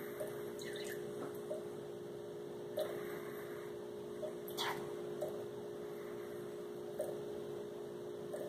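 Quiet room hum with a few soft, scattered clicks from a plastic squeeze bottle of saline solution being squeezed over a measuring spoon.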